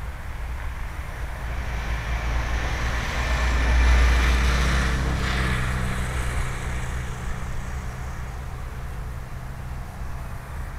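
A car passing on the nearby road: its tyre and engine noise rises to a peak about four seconds in, then drops in pitch and fades. Wind rumbles on the microphone throughout.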